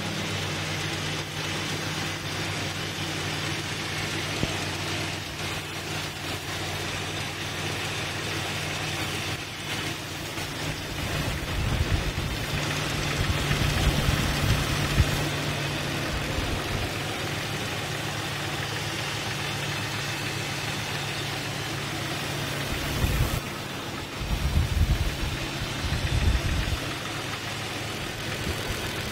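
Jeep 4.0L inline-six idling with a knock that is hard to place, seeming to come from the middle of the block and easily mistaken for piston slap. It grows louder twice, for a few seconds each time.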